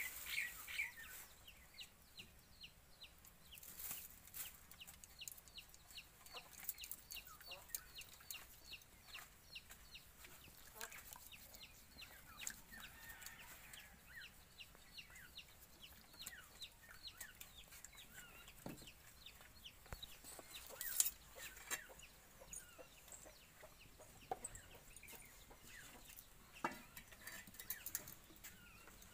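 Chickens calling faintly: a long run of short, high, falling peeps at about two a second, with scattered light clicks and one sharper knock about two-thirds through.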